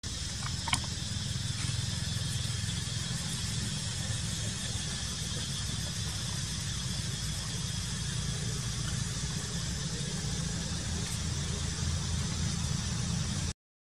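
Steady low rumble under a fainter high hiss, with one short click about a second in.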